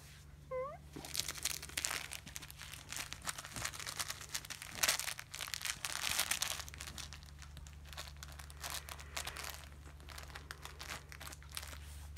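A cat wrestling with a fabric catnip-filled roll toy, its claws and body rustling and scuffing the cloth in irregular scratchy bursts for most of the stretch. A short rising chirp-like sound comes about half a second in.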